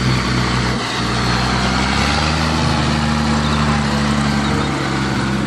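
Case IH 1455 XL tractor's diesel engine running steadily as it pulls a baler across a stubble field.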